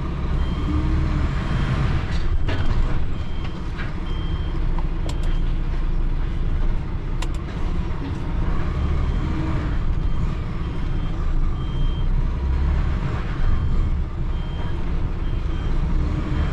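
Lorry's diesel engine running, heard from inside the cab, while its reversing alarm sounds short high beeps roughly once a second and a few sharp clicks come through. The lorry is in reverse, backing up to slide its extendable container trailer shut.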